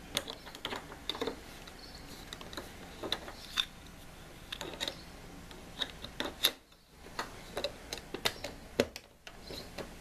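Irregular plastic clicks and taps as the retaining clip and knob are worked onto the shaft of a GE top-load washer's control dial.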